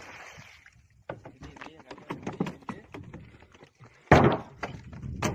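Knocks and thuds on a wooden fishing boat as a gaffed kingfish is hauled aboard, with one loud thump about four seconds in.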